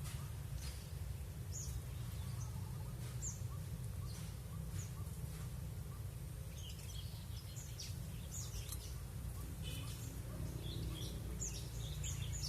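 Several small wild songbirds chirping and calling back and forth in short, high chirps, scattered at first and busier in the second half, over a steady low rumble.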